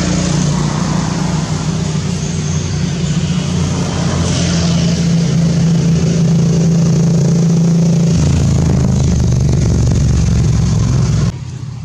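Motor vehicle engine running steadily close by, its pitch stepping down about eight seconds in, then cutting off abruptly near the end.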